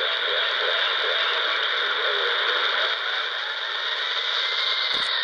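Shortwave reception on 11600 kHz from the small speaker of a CountyComm GP-5 SSB portable receiver: a steady band of static and hiss with faint traces of the broadcast beneath it. There is a single click about five seconds in.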